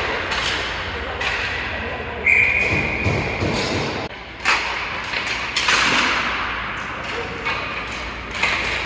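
Ice hockey play in an echoing rink: sharp knocks and thuds of puck and sticks against the boards over a steady scraping haze of skates on ice. A brief high steady tone sounds about two seconds in.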